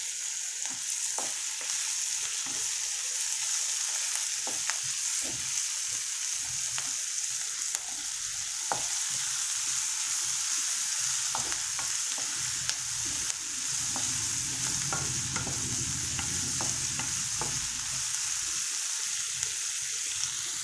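Chopped onions sizzling in hot oil in a kadai, stirred with a wooden spatula that scrapes and taps against the pan now and then. The onions are starting to soften.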